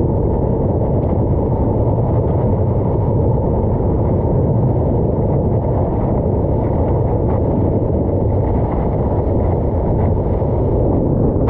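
Steady, muffled rush of whitewater and water streaming past a stand-up paddleboard riding a breaking wave, heard through a camera mounted on the board's nose, with wind buffeting the microphone.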